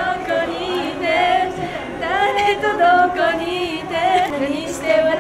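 Two women's voices singing a pop melody unaccompanied, their held notes wavering in pitch.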